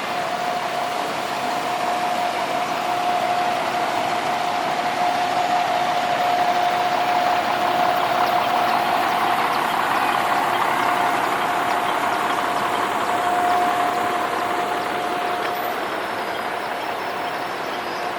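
Steady noise of running engines and street traffic, with a steady whine that stops about three-quarters of the way through.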